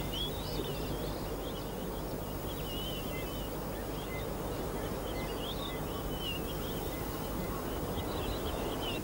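Birds chirping continuously over a steady low background noise of open country.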